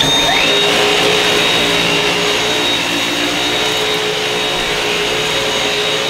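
Dyson V8 Animal cordless stick vacuum switched on, its motor spinning up with a rising whine over the first half-second, then running steadily with a high whine as its floor head is pushed over carpet.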